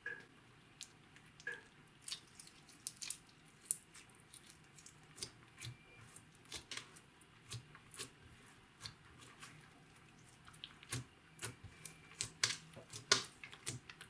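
Slime being worked by hand: an irregular run of sticky clicks and small wet pops, several a second, louder and busier near the end.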